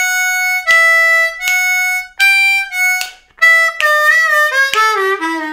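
Diatonic harmonica in the key of D, played solo in second position: a blues lick of held notes alternating between two pitches, then a quick descending run with bent draw notes in the second half, ending on a low bent note.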